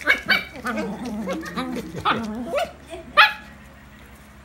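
Two puppies play-fighting, yapping and barking in quick short calls, with one loud sharp bark a little past three seconds in.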